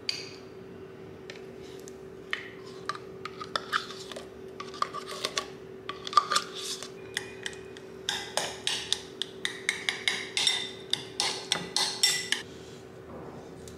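Metal spoon clinking and scraping against a glass bowl and jar: scattered taps while scooping jam, then quick repeated clinks of stirring for about four seconds before stopping. A faint steady hum runs underneath.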